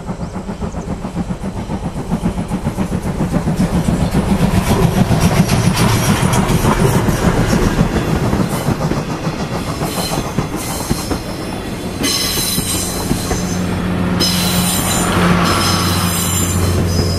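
Steam locomotive C57 1 working upgrade: its exhaust beats come fast and even, growing loudest as it passes, and in the second half the coaches follow with the clatter of wheels over rail joints.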